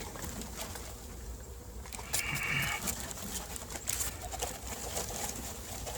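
Honey bees being poured out of a shipping package into a hive: scattered clicks and light knocks as the package is shaken and rapped, with a brief scrape a little after two seconds in. Birds call faintly in the background.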